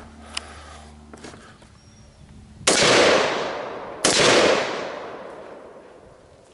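Two rifle shots from an AR-style Tier 1 Citizen 7.5, fired just over a second apart, each a sharp crack followed by a long echo that fades away over about a second and a half.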